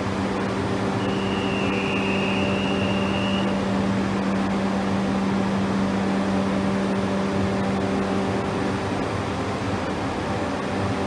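A JR East 701 series electric train standing at the platform, its on-board equipment giving a steady electrical hum. A brief high tone comes in about a second in and lasts around two and a half seconds.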